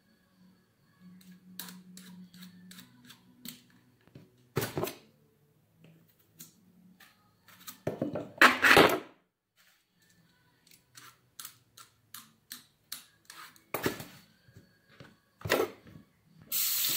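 Hand food prep on a kitchen counter: an irregular run of light clicks and knocks from cutting and handling zucchini, with a few louder clatters, the loudest about eight to nine seconds in. A water tap starts running near the end.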